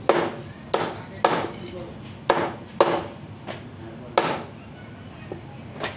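Heavy meat cleaver chopping through raw chicken into a wooden chopping block: six sharp chops at uneven spacing in the first four and a half seconds, then a lighter knock near the end.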